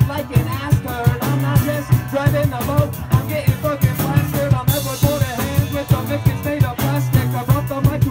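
A live band playing, with the drum kit keeping a steady beat under pitched instruments and a crash about halfway through.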